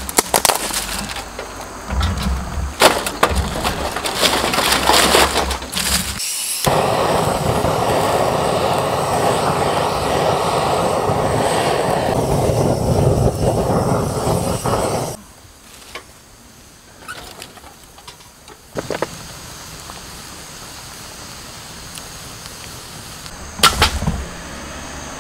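Dry twigs cracking and snapping as they are broken and packed into a stainless-steel fire pit, in a quick run of sharp cracks. Then a gas torch hisses steadily for about eight seconds as it lights the kindling, and cuts off, leaving a quiet background with one click near the end.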